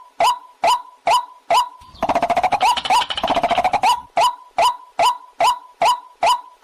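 Waterhen call: a sharp, even note repeated about twice a second, broken in the middle by two seconds of fast chattering, then the repeated note again.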